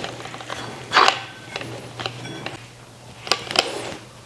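A handful of sharp metallic clicks and clinks, some with a brief ring, the loudest about a second in, as a steel extension shaft is twisted and seated onto an angle grinder's spindle by hand.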